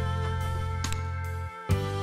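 Soft instrumental background music with held notes. It dips briefly, then a new chord is struck near the end.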